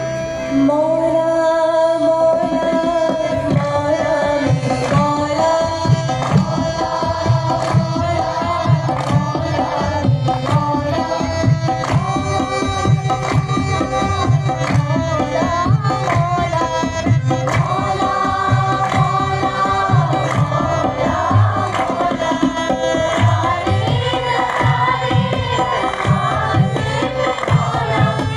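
Live South Asian devotional stage music: a hand drum keeps a steady beat under a sung melody, with voices singing together.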